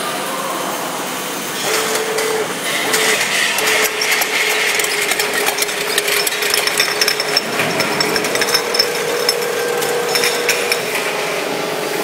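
Twist-off cap vacuuming and capping machine for glass jars running: a steady motor hum with rapid clicking and clattering from the capping mechanism, louder from about two seconds in.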